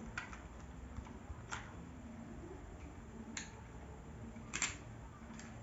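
A few sharp, separate clicks of small plastic toys being handled and tried out.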